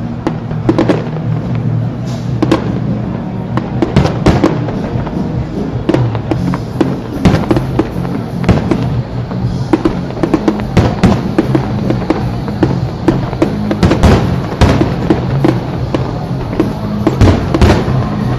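Fireworks display: aerial shells bursting in a rapid, irregular barrage of loud bangs, with music playing underneath.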